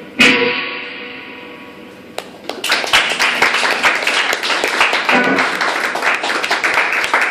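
An electric guitar chord struck hard and left to ring out, fading over about two seconds, followed from about halfway in by applause.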